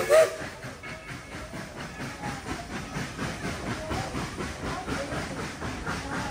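Steam whistle of narrow-gauge steam locomotive No. 70 ending with one short toot just after the start, then the locomotive hissing steam with a run of irregular knocks.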